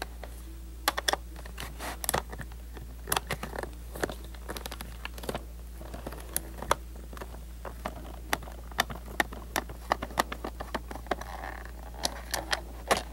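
A small metal tool and fingers working at a plastic VHS cassette shell to pry it open, making irregular sharp clicks and taps of hard plastic, over a steady low hum.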